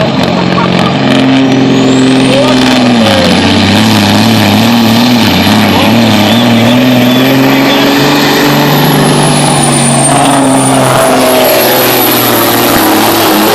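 Semi truck's diesel engine running hard under load as it pulls a weight sled, its pitch dipping about three seconds in and then wavering, with a high turbo-like whistle that climbs early, sags and rises again near the end.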